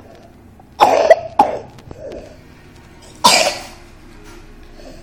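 A person asleep sitting up, snoring loudly: a loud snore about a second in with a shorter one right after, then another loud snore a little past three seconds.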